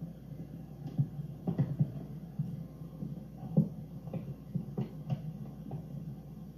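Steady low hum with irregular soft knocks, clatters and rustles of photo album pages being handled on a carpet.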